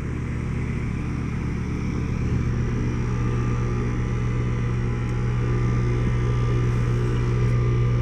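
Outdoor heat pump and air-conditioner condensing units running steadily: a low compressor hum with fan noise.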